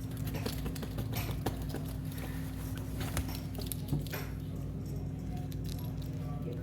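A steady low hum with scattered faint clicks and taps.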